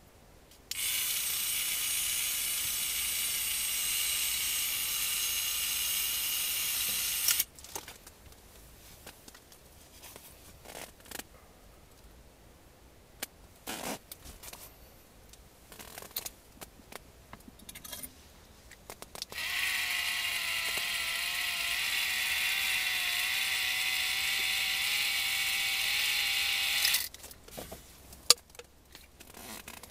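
Small electric reel motor whirring steadily as it winds in line, in two runs of about seven seconds each that start and stop abruptly. The pitch wavers a little during the second run. Light clicks and taps come between the runs.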